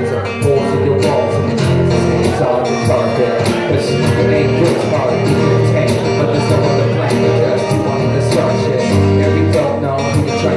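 Live rap-rock band playing loudly, with guitar over a steady beat and no clear vocal line.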